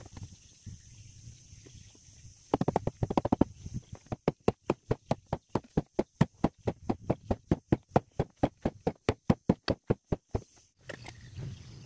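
Hammer blows on the wooden planking of a boat hull: a short flurry of knocks, then a long run of quick, even strikes at about four or five a second that stops abruptly near the end.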